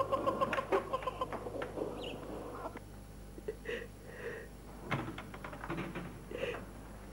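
An elderly woman sobbing: quick shaking sobs for the first second or so, then softer, broken whimpering cries, with a single sharp knock about five seconds in.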